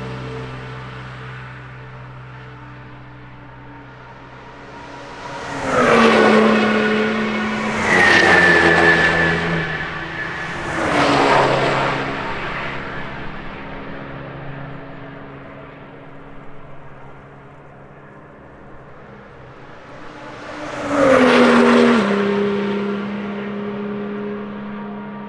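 Cars passing by one at a time at speed, engines pulling hard, each one's pitch dropping as it goes past. Three come in quick succession, the second with a high whine, and a fourth follows after a quieter gap.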